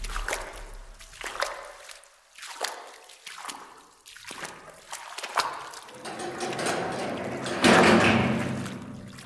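Horror sound-effect track: sharp echoing knocks about once a second, then a low droning swell with a loud hit about three-quarters of the way through that slowly dies away.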